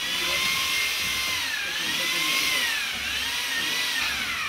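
Hand-held electric power drill running under load, its motor whine dipping in pitch a few times as it bites and falling away near the end as it winds down.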